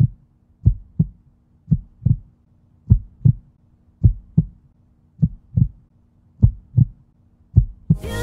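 Heartbeat sound effect: paired low thumps, lub-dub, about one pair a second, over a faint steady low hum.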